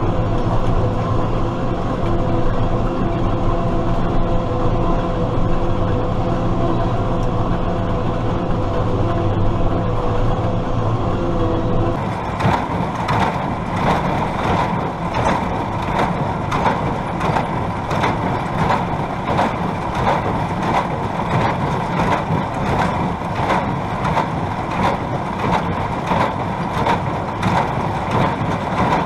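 Tractor engine running steadily while working a New Holland 570 small square baler. About twelve seconds in, the sound changes to a rhythmic knocking of roughly one and a half strokes a second, the baler's plunger packing hay into bales.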